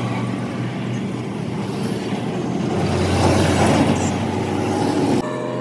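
Motor vehicle noise, a rumbling engine or passing-traffic sound that swells and then cuts off abruptly about five seconds in, leaving a quieter steady hum.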